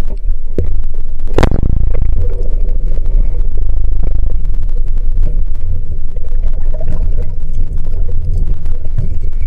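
A single sharp snap about a second and a half in, ringing briefly: the shot of a C4 Carbon MrCarbon 79 band-powered speargun (arbalete) as its bands release the shaft. Under it runs the steady low rumble and crackle of surge and water moving, heard underwater through an action-cam housing.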